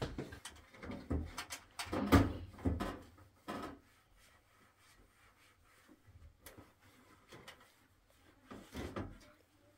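Knocks and clatter of a gas cooker being handled: its metal parts and oven door bumped and moved in a quick run of sharp knocks over the first few seconds, then a few more near the end.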